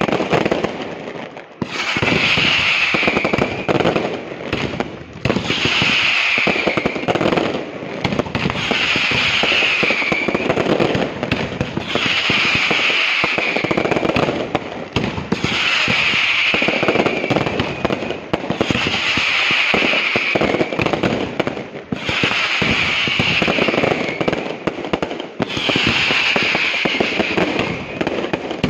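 Castillo aerial fireworks display by Pirotecnia Alto Palancia: dense volleys of bangs and crackle. They come in repeated waves about every three seconds, each with a high, slightly falling hiss and a brief dip between waves.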